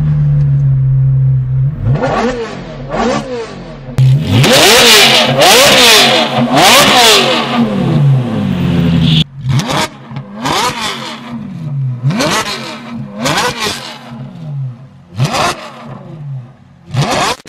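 Straight-piped Ferrari F430's 4.3-litre V8 being revved. It idles steadily, gives two quick blips, then a long run of loud revs, and after that a string of short, sharp throttle blips about once a second.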